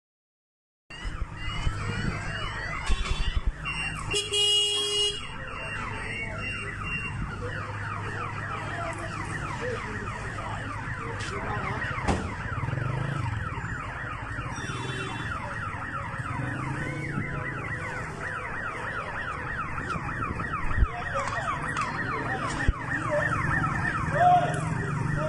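Car alarm sounding: a fast, evenly repeating falling whoop, over a steady low rumble, with a few sharp knocks.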